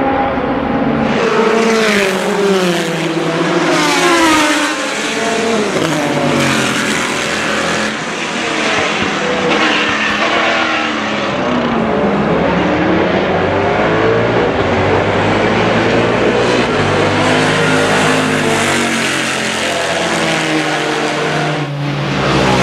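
6.5-litre Chevrolet V8 of a Spice Group C prototype race car running hard. The engine pitch swings up and down repeatedly as it revs and changes gear, climbs in a long sweep around the middle, and settles into lower, steadier running near the end.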